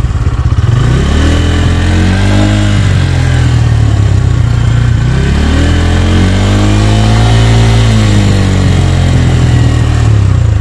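Bajaj Pulsar N150's single-cylinder engine revved up twice to about 6000 rpm and allowed to fall back each time, the second rev held high for a few seconds before dropping.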